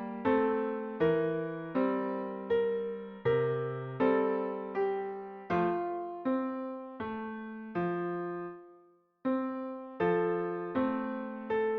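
Background music: slow piano or electric-piano chords, one struck about every three-quarters of a second, each ringing and fading, with a short silent break about nine seconds in.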